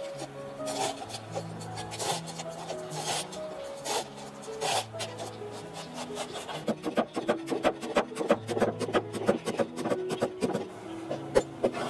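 A cleaver cutting cabbage on a wooden chopping block. A few separate slicing strokes come first, then from about halfway it turns to rapid chopping, several strokes a second, as the cabbage is minced fine.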